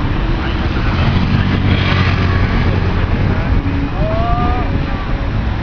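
Street traffic: motorcycle and car engines running and passing close by, a steady low engine hum with a short rush of noise about two seconds in.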